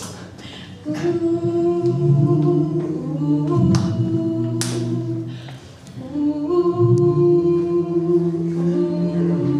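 A small mixed a cappella group of four voices singing close doo-wop harmony into microphones, holding long chords in two phrases with a short break in the middle. Two sharp clicks sound about four seconds in.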